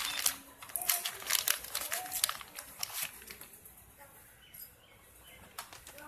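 Thin plastic spare-part bag crinkling and rustling as it is torn open and a new PTC starting relay is pulled out, busiest in the first three seconds or so and then dying down to light handling.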